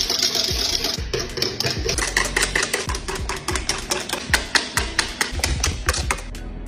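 Wire whisk beating a mixture fast in an aluminium pot, the wires clattering against the metal sides in a rapid, even run of clicks, several a second.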